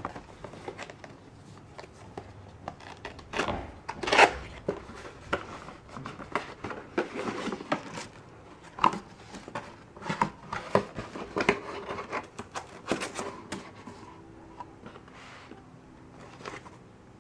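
Cardboard packaging being handled and opened: a sleeve slid off and a box lid lifted, with irregular scrapes, rustles and knocks of cardboard, loudest about four seconds in. Near the end there are only faint rustles as the plastic-wrapped parts inside are touched.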